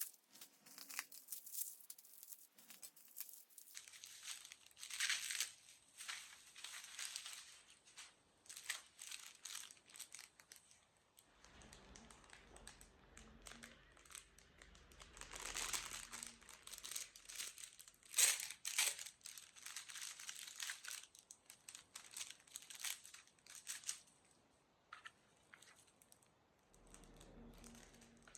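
Packaging being unwrapped by hand: irregular crinkling and rustling of wrapping, with some tearing, in quick scattered bursts, the loudest about two-thirds of the way through.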